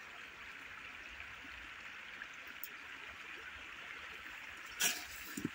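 A long-handled rake knocking once among the branches of a fruit tree, a short rustling knock about five seconds in, over a faint steady hiss.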